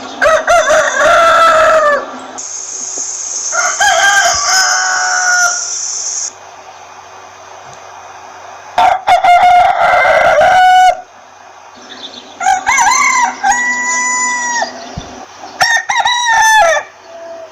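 Roosters crowing: five long crows in turn, each a pitched call held steady and then dropping at the end, with a loud high hiss over the second crow.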